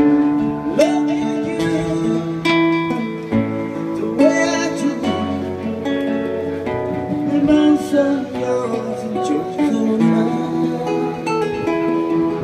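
A man singing into a microphone over a guitar accompaniment, performing a song live.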